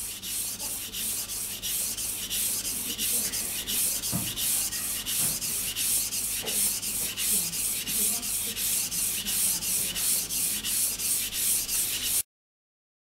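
A knife blade being pushed back and forth on a wet whetstone with a clip-on guide rail: an even, repeating scraping at about three strokes a second. The unchanging sound is the sign of a steady sharpening angle held by the guide rail. It cuts off abruptly near the end.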